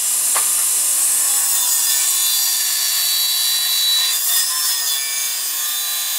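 Tilting-table circular saw (Wippsäge) with its blade cutting through an oak beam: a steady high whine with the rasp of the blade in the wood, and a short sharp catch about half a second in and again near four seconds.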